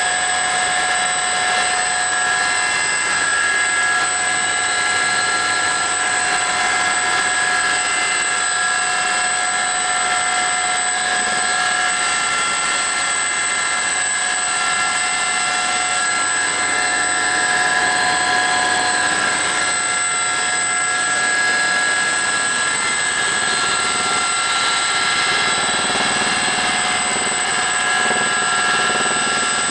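Aérospatiale Gazelle helicopter in flight, heard from inside the cabin: its Turbomeca Astazou turboshaft and rotors give a steady high whine over an even rushing noise.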